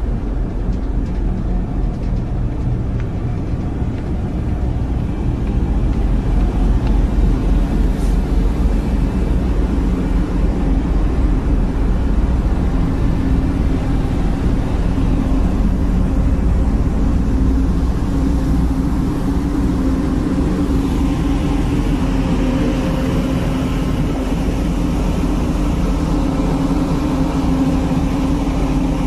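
Cruise boat's engine running with a steady deep drone and hum. A rushing hiss of its wake joins in during the second half.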